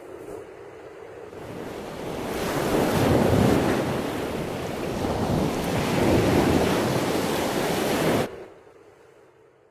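Sea surf: waves washing in, swelling twice, then cutting off suddenly and leaving a faint fading tail.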